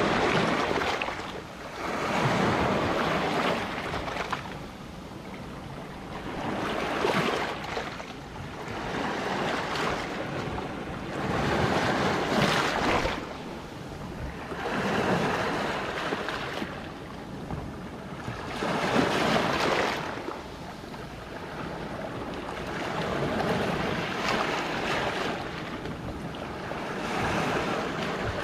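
Sea waves breaking and washing over a rocky shore, surging in loudly every few seconds and falling back between.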